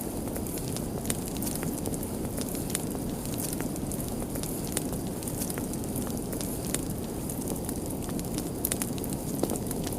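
Fire crackling: a steady low rush of flames under scattered sharp pops and snaps, which come thicker near the end.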